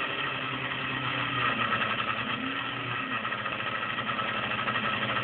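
High-speed DC motor spinning a magnet rotor through a timing belt and aluminium pulleys, running steadily. Its pitch drops a little about halfway through as the voltage is turned down and the rotor slows.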